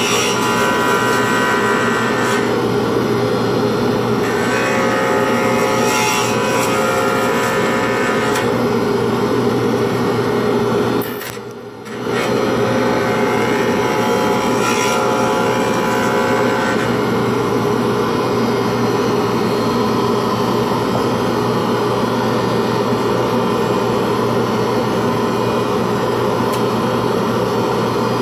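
Jet lathe spinning a pen blank at high speed while it is being turned, with the steady drone of a dust-extraction vacuum. The sound dips briefly a little past eleven seconds in.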